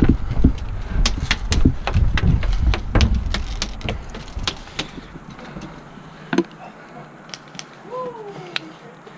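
Heavy footsteps thudding on a plywood bunker's wooden plank floor, mixed with sharp clicks and snaps of airsoft gunfire and gear knocking. About five seconds in it quiets to scattered distant clicks.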